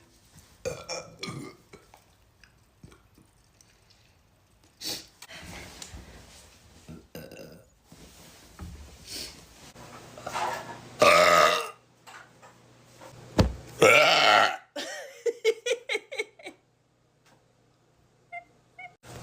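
A woman burping over and over: several small burps, then two long, loud burps about eleven and fourteen seconds in, the second running into a quick string of short pulses, about five a second.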